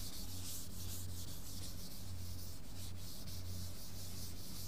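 A board duster rubbing across a chalkboard as it is wiped clean, a soft, even scrubbing, over a steady low electrical hum.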